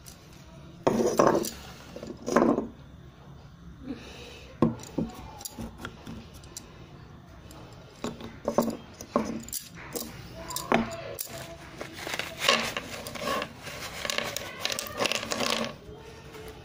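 Broken clay-pot pieces clinking and scraping in a clay kullad as they are handled, with two loud knocks in the first few seconds. Near the end comes a dense clatter of slate pencils tipped out of their box onto the table.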